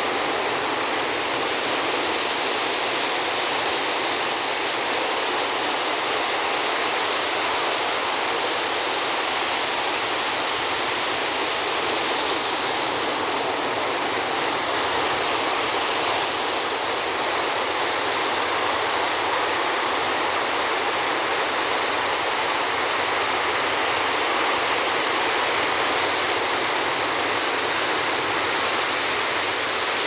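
Ocean surf breaking and washing up over the sand, a steady rush of water with no let-up.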